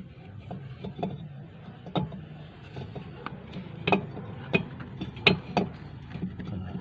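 Irregular metal clicks and clinks of hand tools and brake parts being handled during tuk-tuk brake shoe work, a dozen or so sharp knocks with the loudest a few seconds in, over a low steady hum.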